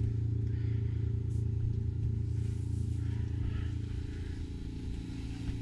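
Steady low machinery drone with an even pitched hum, heard in a boat's engine room, with faint knocks and rustles of movement over it.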